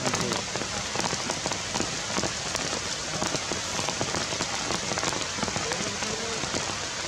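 Steady rain falling on forest foliage: a dense, even hiss with many sharp drop ticks.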